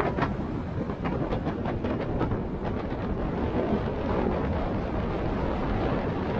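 Wind rushing over the microphone and road noise from a motorcycle riding along at speed, steady throughout, with a few light knocks in the first few seconds.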